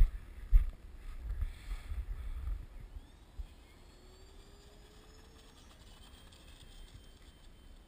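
Wind buffeting the microphone with low thumps. About three seconds in, the faint high whine of the model A-10's twin electric ducted fans comes in, its pitch gliding up as they spool.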